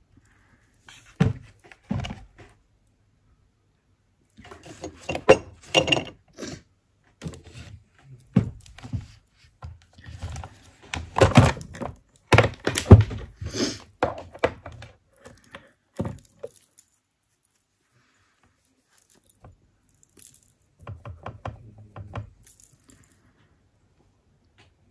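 Irregular knocks, clatter and light rattles of makeup products and tools being handled and set down, in several clusters with quiet pauses between; the loudest knocks come about halfway through.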